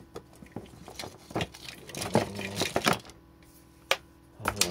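A tangle of cables with plastic plugs and adapters clattering and clicking as they are handled and dropped back into a cardboard box. There is a dense run of light knocks from about one to three seconds in and a couple of sharp clicks near the end.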